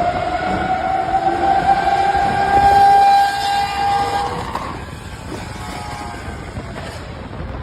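Supercar engine revving high under hard acceleration in a tunnel, its pitch climbing slowly for about four seconds, then falling away to a quieter rumble.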